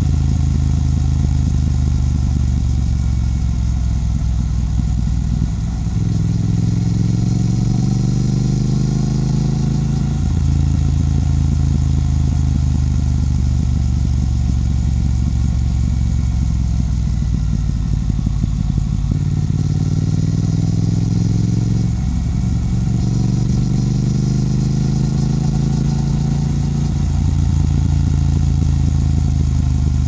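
Triumph Speed Twin's parallel-twin engine and exhaust on the move, heard close to the silencer. The revs climb under acceleration about six seconds in and again after about twenty seconds, with drops in pitch at gear changes between steadier stretches.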